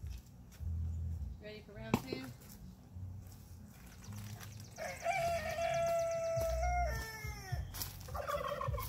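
A rooster crowing. One long crow about five seconds in, with a held note that falls away at the end, and shorter calls before and after it. A sharp click about two seconds in.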